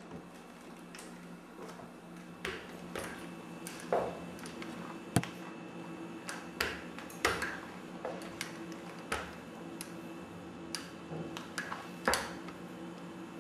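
Walking on forearm crutches across a tiled floor: the rubber crutch tips and a shoe tap and knock on the tiles at an uneven pace, roughly once a second. A steady low hum runs underneath.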